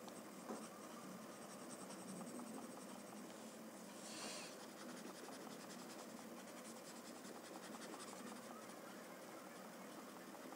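Faint scratching of a paper blending stump (tortillon) rubbed in small strokes across drawing paper to spread graphite shading, with a brief louder rub about four seconds in.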